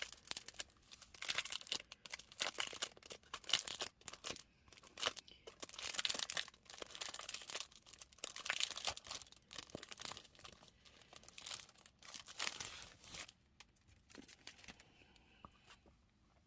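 Packaging being handled, crinkling and tearing in irregular bursts. It stops a few seconds before the end.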